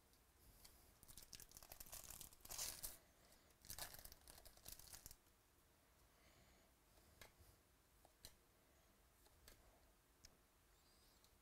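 A foil wrapper on a Bowman baseball card pack being torn open and crinkled, in several rustling bursts over about four seconds. Then come faint clicks of trading cards being thumbed through.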